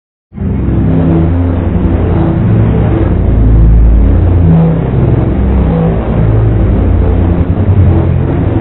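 A saw sound effect run through flanger and chorus effects, pitch-shifted to play a tune: loud, buzzy chords whose pitch steps from note to note every half second or so, starting abruptly just after the start.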